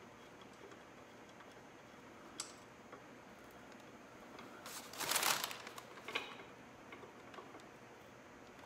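Faint clicks and handling noise of hand tools and parts at a motorcycle's horn mount, with a brief rattle about five seconds in, the loudest sound.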